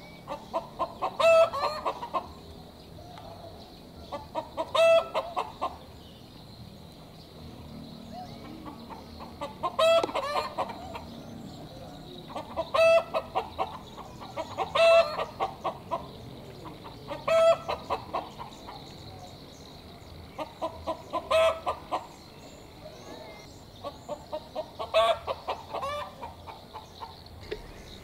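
Chicken cackling 'petok-petok': bursts of rapid clucks, each about a second long, repeating every few seconds.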